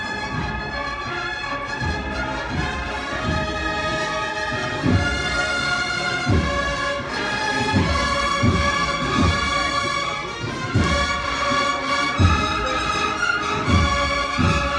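Spanish processional band playing a march: brass holding sustained chords over a steady drum beat, about one stroke every 0.7 seconds.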